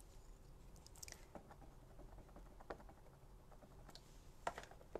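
Near silence, broken by a few faint, scattered taps and clicks from stamping tools and card being handled at the craft desk.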